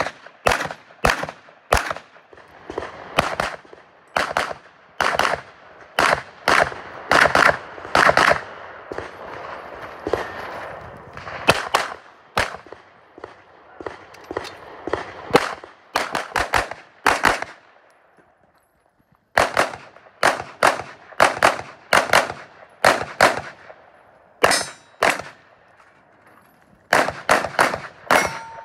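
Pistol-caliber carbine firing shot after shot in quick pairs and strings, each shot with a short echo. There is a brief pause about two-thirds of the way through before the firing resumes.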